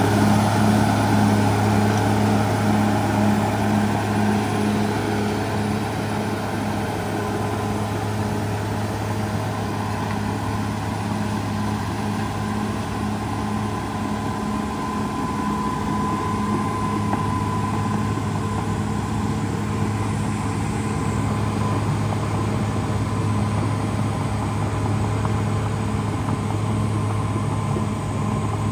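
CAT D6R XL crawler dozer's diesel engine running steadily with a low hum, a little louder in the first few seconds.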